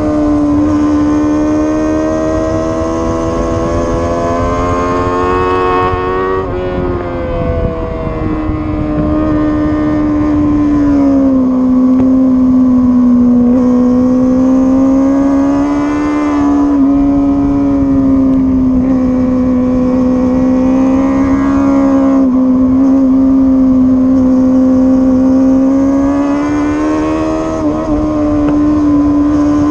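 Sportbike engine running at high revs at speed on a racetrack, its pitch sagging and rising through the corners, with sharp changes in pitch about seven seconds in and again near the end. A rough low rumble of wind runs underneath.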